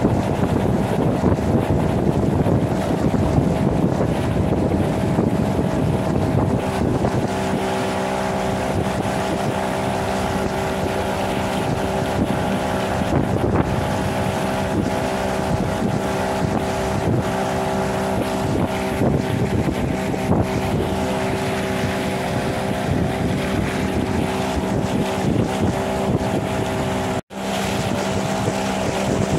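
Boat motor on a chaldonka running steadily under way, heard from aboard, its pitch holding even. Wind buffets the microphone for the first several seconds, and the sound drops out briefly near the end.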